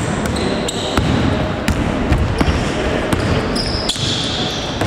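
Basketball game play: the ball bouncing on the court floor in repeated sharp thuds, with short high squeaks of sneakers and players' voices in the background.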